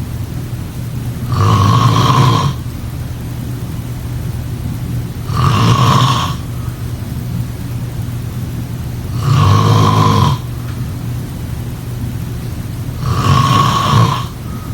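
A person snoring: four rasping snores about every four seconds, each lasting about a second, over a steady low hum.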